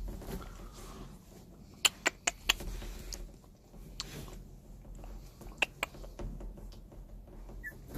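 Two-and-a-half-week-old puppies shuffling, with faint squeaks, and several sharp clicks: a quick run of four about two seconds in, and a few more later.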